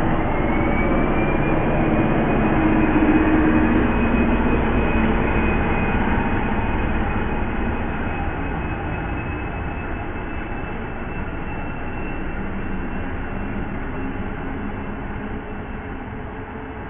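SU42 diesel locomotive running close by as it passes, followed by the rumble of double-deck passenger coaches rolling past on the track. A thin high whine rises in the first second and then holds steady. The sound is loudest a few seconds in and fades slowly as the train moves away.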